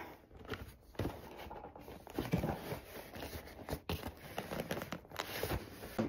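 Hands working at a stubborn cardboard box that will not open: irregular scraping and rustling with small knocks and clicks.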